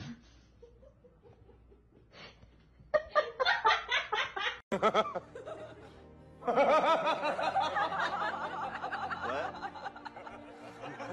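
Quiet at first, then a person laughing in quick rhythmic bursts about three seconds in. From about halfway, laughter goes on together with music.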